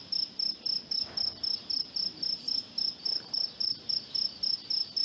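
An insect chirping in an even, unbroken rhythm: short high-pitched chirps, about four a second, all at the same pitch.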